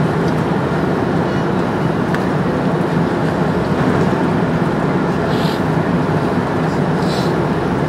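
Airbus A330 cabin noise on final approach: a steady, loud roar of airflow and jet engines heard from a window seat over the wing, with the flaps extended for landing.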